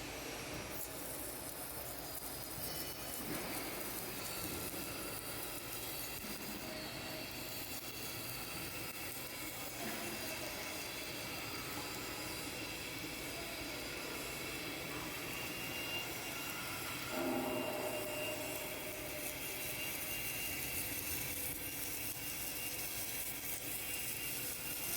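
Steady industrial machine noise from an automatic submerged arc welding setup: a continuous hiss and hum with faint steady whining tones, swelling briefly about two-thirds of the way in.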